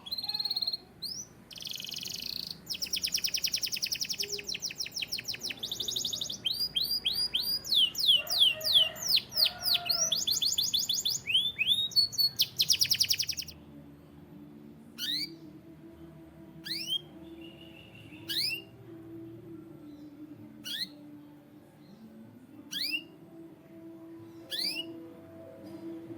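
A canary singing. It gives fast trills and rolls of rapidly repeated high notes for about the first half. After that it gives single short, sharply falling chirps every second or two.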